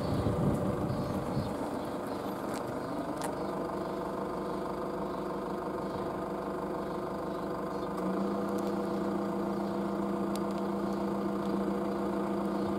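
A vehicle engine running steadily at idle, with a low hum that steps up about eight seconds in.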